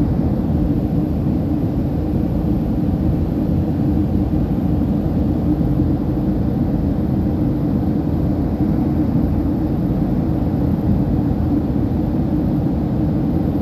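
Jet airliner cabin noise in flight, heard from a window seat: a steady, loud rush of engine and airflow noise with a low hum running under it.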